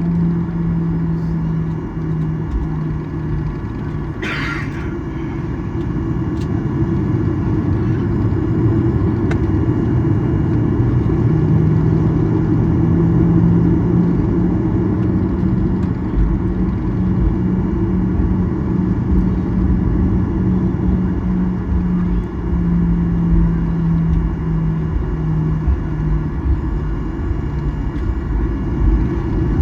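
Cabin noise of a Boeing 737-800 taxiing, its CFM56-7B turbofans running at taxi power: a steady low rumble with an engine hum that wavers in pitch and grows a little louder about ten seconds in. A brief higher-pitched sound comes about four seconds in.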